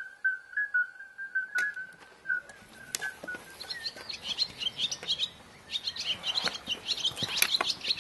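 A high, steady whistle fades out about two and a half seconds in, and small birds take over, chirping rapidly and overlapping through the rest.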